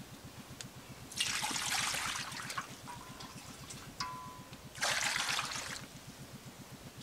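Water poured into a two-handled metal wok, splashing twice: once from about a second in, and again about five seconds in, each pour lasting about a second.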